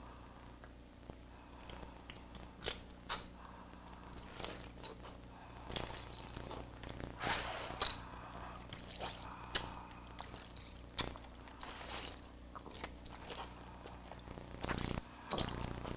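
Irregular crisp clicks and crunchy scratching, a sound effect for a small bug crawling across a bed sheet and onto a sleeper's arm, over a steady low hum.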